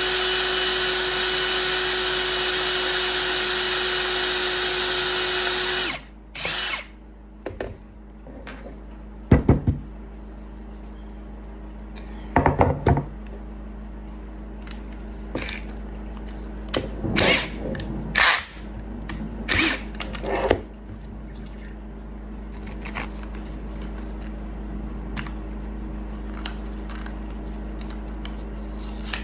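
Electric drill running steadily while working on a stuck aluminum sex bolt in an axe handle, to extract it. The drill cuts off suddenly about six seconds in, followed by scattered clicks and knocks of tools and parts being handled.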